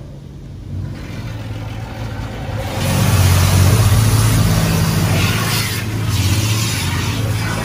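High-pressure water jets of a Laserwash G5 touchless car wash spraying against the car, heard from inside the cabin as a loud hiss over a steady low hum. The spray grows louder about three seconds in as it sweeps across the windows, and eases briefly near the end.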